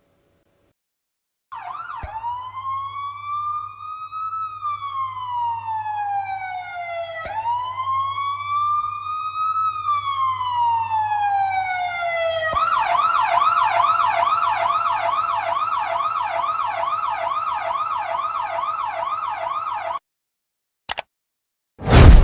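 Emergency-vehicle siren: two slow wails rising and falling in pitch, then a fast yelp of about three cycles a second, cutting off suddenly. A click and a loud hit follow near the end.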